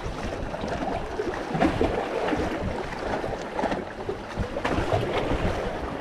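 Sea waves washing and splashing against rocks, with wind buffeting the microphone.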